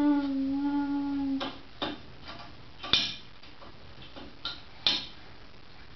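A toddler's voice holds one steady note for about a second and a half, then come a handful of sharp clicks and knocks, the loudest about three and five seconds in, as the child handles the plastic bath toys in the basket.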